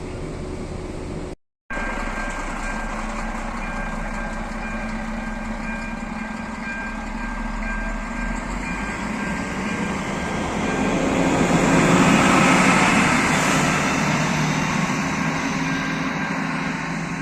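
Passenger train running on the rails, a steady rumble and rush with a thin steady whine on top. The noise swells to its loudest about two-thirds of the way through, then eases off.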